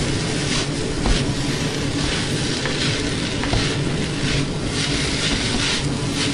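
Fried rice being stir-fried in a stainless steel wok: sizzling, with the spatula scraping against the pan about twice a second, over a steady low hum.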